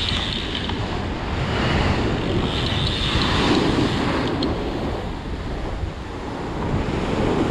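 Strong wind buffeting the microphone over waves breaking on a rocky shore, a steady rushing noise.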